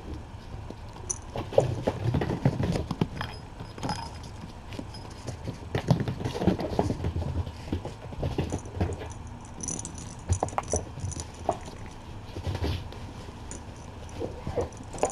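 Kittens scampering and playing with toys on the floor: scattered light thumps, paw patter and rustles, with an occasional faint jingle or crinkle.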